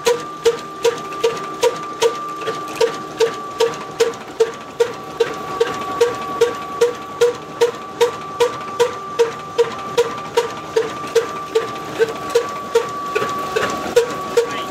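Old stationary 'black engine' diesel running at a steady, slow speed. It gives an even, sharp metallic clack about three times a second over a steady high whine.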